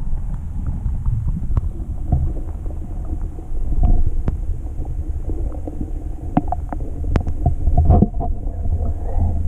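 Muffled underwater sound of river water heard through a submerged camera: a steady low rumble with scattered clicks and ticks, a few louder ones about four seconds in and again near the end.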